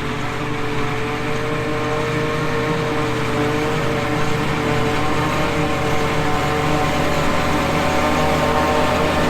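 Tractor engine running steadily on the move, its pitch rising slowly as the revs build.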